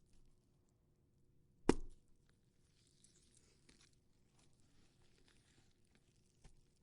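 A cantaloupe being struck and broken apart as gore foley: one sharp hit a little under two seconds in, then faint wet crackling and tearing, and a lighter knock near the end.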